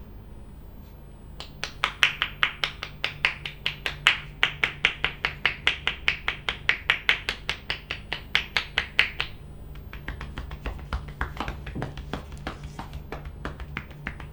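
Percussive hand massage on a back: quick rhythmic slaps at about five a second, sharp and even. About ten seconds in they give way to lighter, faster tapping.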